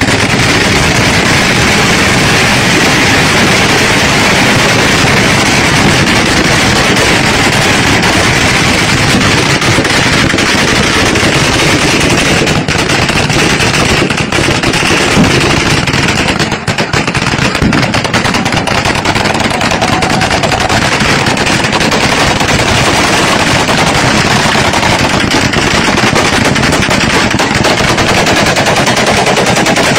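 Celebratory gunfire: many guns fired into the air at once in a continuous, overlapping barrage of shots, with only a brief lull about halfway through.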